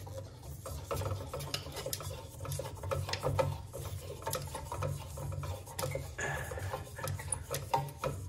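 Irregular rubbing, scraping and small clicks as a hand works inside a recessed ceiling light can and twists the bulb out of its socket, over a low uneven rumble.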